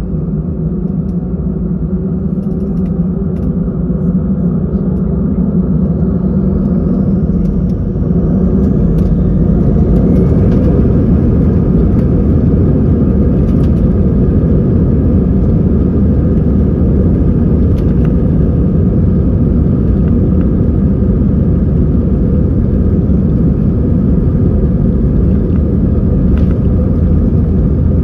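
Airbus A320-214's CFM56 jet engines heard from inside the cabin, spooling up to takeoff thrust. A faint rising whine climbs over a deep, steady rumble, the sound grows louder about eight seconds in, and then it holds steady through the takeoff roll.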